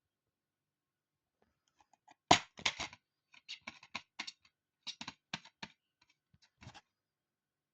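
An irregular run of sharp clicks and clatters, about a dozen, starting about two seconds in and ending near seven seconds: small hard objects being handled.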